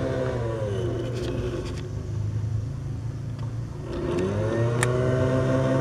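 An engine's pitch drops away about half a second in, then rises again around four seconds in and holds steady, over a steady low hum.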